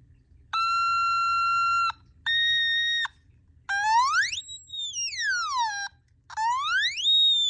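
Otamatone on its high range setting: two steady held notes, the second higher, then two long swoops that slide up to a high pitch and back down.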